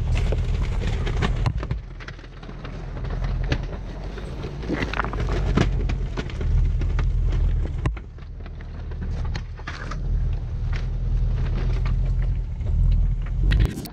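Range Rover Sport crawling over a rocky creek bed: a low rumble with scattered knocks and crunches from the tyres and underbody working over loose stones and boulders.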